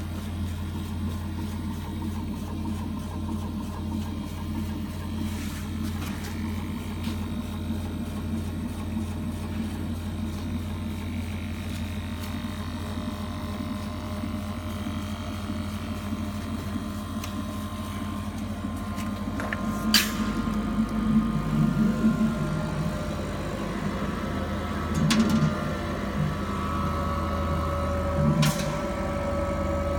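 Kamach 1510 CO2 laser cutting machine running: a steady low mechanical hum, joined in the second half by steady whining motor tones, with three sharp clicks.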